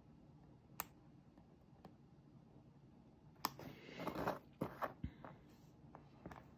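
Quiet clicks and a short scraping rustle, with a few sharp ticks about three and a half seconds in, from an X-Acto knife trimming excess copper foil from the edge of a small glass piece.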